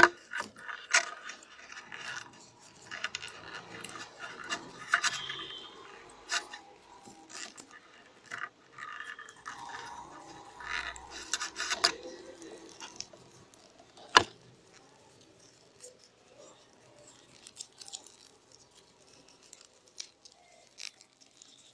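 Rolled newspaper tubes rustling, crinkling and scraping as they are woven by hand into a petal, with scattered sharp clicks. It is busier in the first half and quieter later, with one sharp click about two-thirds of the way through.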